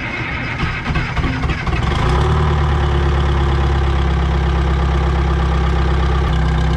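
Old P&H excavator's diesel engine cranking on a shot of ether, catching about two seconds in and settling into a steady run.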